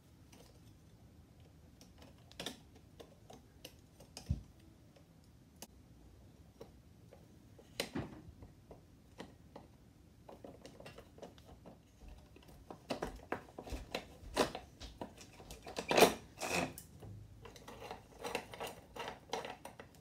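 Screwdriver working the screws of an old metal electrical box and its armoured-cable clamp: scattered metallic clicks, taps and scrapes, few at first and coming thick and fast in the second half.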